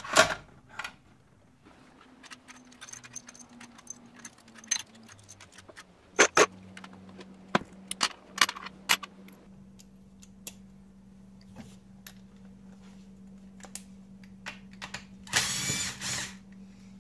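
A cordless power driver runs for about a second near the end, spinning out a valve body bolt on a GM 4L80e transmission. Before that come scattered clicks and clinks of metal parts being handled.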